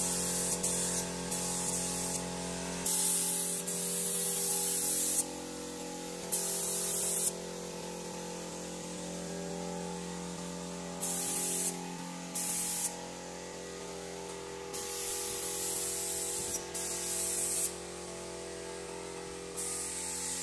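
Compressed-air spray gun hissing in repeated bursts as the trigger is pulled and released, spraying wood polish onto furniture; one burst runs about two seconds, the rest are shorter. A steady hum lies underneath.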